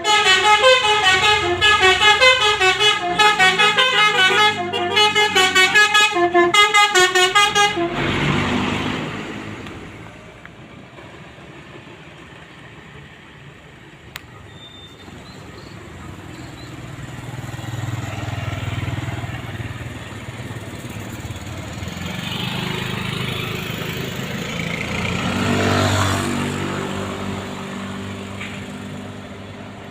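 Basuri telolet multi-tone bus horn playing a quick melody of short pitched notes, which stops about eight seconds in. After it comes the lower sound of vehicle engines, swelling twice.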